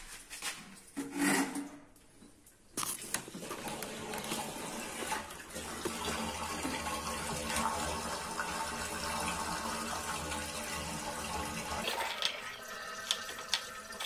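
Water gushing out of a Samsung washing machine's drain hose into a floor drain, with a low hum underneath. It starts suddenly about three seconds in and eases off about twelve seconds in, leaving a lighter trickle with drips.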